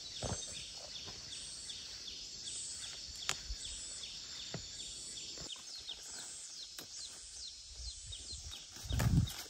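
A bird calls over and over in short, high, falling chirps, two or three a second, over rural background noise. Leaves rustle and there are footsteps in rubber boots through squash vines, with a louder low thump about nine seconds in.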